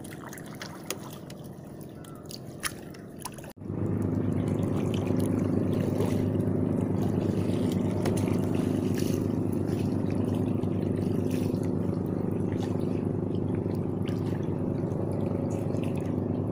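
Water dripping and splashing off a wooden paddle as a small boat is paddled, with scattered light clicks. About three and a half seconds in, the sound cuts abruptly to a louder, steady low hum that holds to the end.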